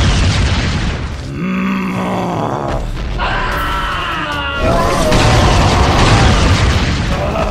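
Cartoon fight sound effects over background music: heavy booms and crashing rock debris, with a character's grunts and a short pained cry.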